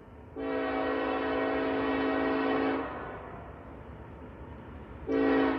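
Norfolk Southern locomotive horn sounding a chord: one long blast, then a shorter, louder blast about two seconds later, over a faint low rumble.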